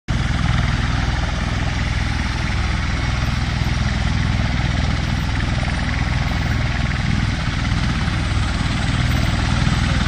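MV-22 Osprey tiltrotor running on the ground with its rotors turning in helicopter mode: a steady low hum under a continuous rushing roar of rotor and engine noise.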